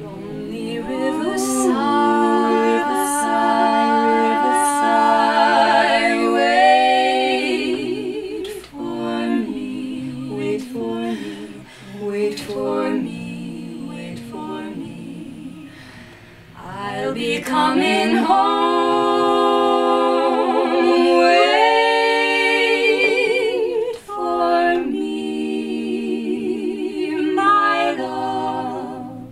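Female vocal trio singing a cappella in close harmony: held chords with vibrato, building to two louder swells with softer passages between.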